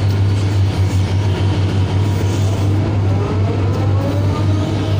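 Large hydraulic excavator's diesel engine running under load with a steady low drone, heard from inside the cab while the bucket dumps a load of overburden into a dump truck and swings back. From about three seconds in, a whine rises and then falls in pitch.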